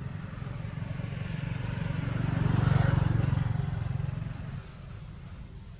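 A motor vehicle passing: a low engine rumble grows louder to a peak about three seconds in, then fades away.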